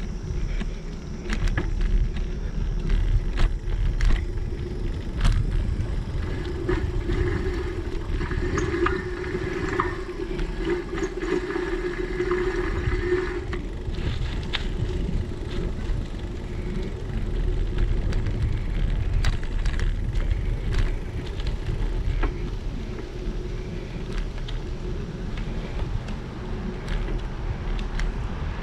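Bicycle riding on a paved path: a steady low rumble of tyres and wind buffeting the camera's microphone, with sharp clicks and rattles from the bike over bumps. A steady hum comes in for several seconds about a third of the way through.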